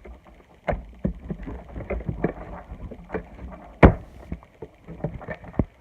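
Slime being squished and kneaded by hand: a run of sticky clicks and pops, with one sharp, louder pop a little under four seconds in.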